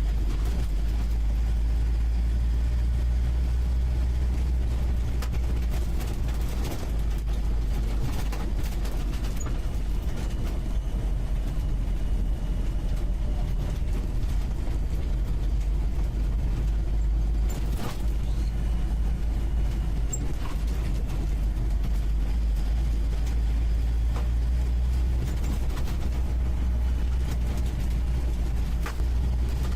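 UAZ 469B's four-cylinder petrol engine running steadily under way, heard from the passenger seat inside the cab, with a few short knocks and rattles from the body over the uneven trail.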